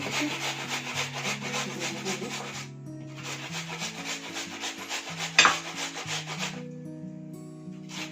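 Onion being grated by hand on a kitchen grater: quick rasping strokes in two runs with a short break about three seconds in, and one sharp knock about five and a half seconds in. Background music with held notes plays underneath.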